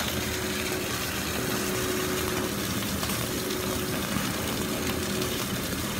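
Boneless chicken leg steak frying in a pan in its own rendered fat, a steady sizzling hiss with a faint constant hum underneath.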